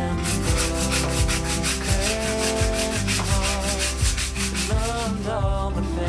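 A hand scrub brush scrubbing wet wooden deck tiles with floor cleaner in quick, rhythmic strokes, with background music underneath.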